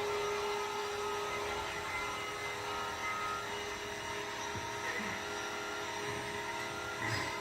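Vacuum cleaner running steadily, its motor giving a constant whirring hum with a fixed whine, with a couple of faint brief knocks about halfway through and a slightly louder one near the end.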